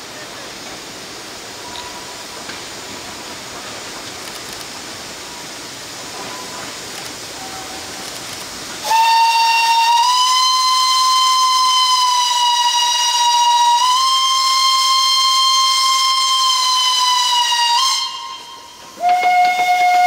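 Steam locomotive whistle on a narrow-gauge forest railway: after a steady rushing hiss, one long loud blast begins about halfway in, nudging slightly higher partway through and cutting off suddenly. A second blast starts near the end at a lower pitch.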